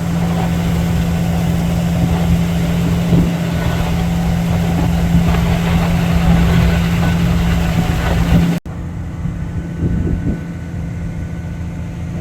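Heavy diesel engine of a concrete pump truck running steadily under a pour, with a strong steady hum. About two-thirds of the way through, the sound drops suddenly to a quieter engine noise.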